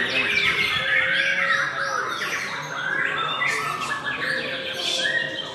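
White-rumped shama singing a continuous, varied song of quick whistles and chattering chirps with no pause.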